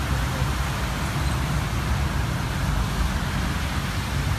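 Road traffic driving through floodwater: a steady wash of engine and tyre noise as cars splash through standing water on the road, with a heavy low rumble.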